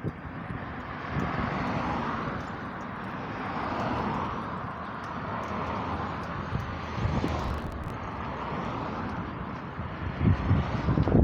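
Road traffic going by: a rushing hiss that swells and fades in waves.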